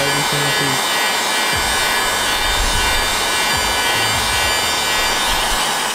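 Handheld Craftsman heat gun blowing steadily, a loud even rush of fan and hot air.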